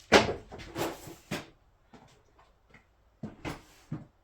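Hand tools clattering and knocking in a drawer or tool box, a string of irregular knocks with short pauses, as someone rummages for a pair of pliers.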